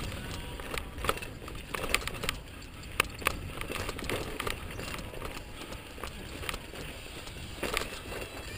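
Mountain bike rolling fast over a rocky dirt trail: a steady low rumble of tyres on dirt and wind on the microphone, broken by frequent sharp clicks and rattles as the bike jolts over stones.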